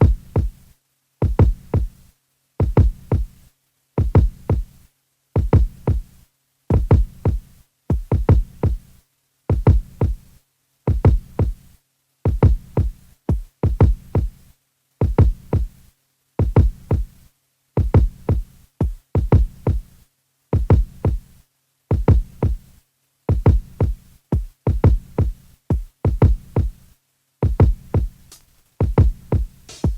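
Drum-machine beat playing back from an Akai Force: deep electronic bass-drum hits that drop slightly in pitch, repeating in a steady pattern about one every three-quarters of a second. Brighter high hits join near the end.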